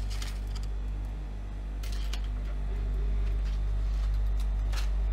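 Steady low electrical hum, with a few brief clicks and rustles of something being handled: near the start, about two seconds in and near the end.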